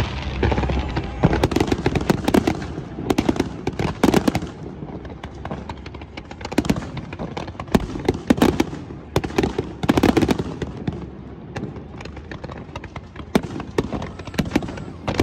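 New Year fireworks display going off: a rapid run of bangs and crackling reports, coming in dense clusters with a brief lull about two-thirds of the way through.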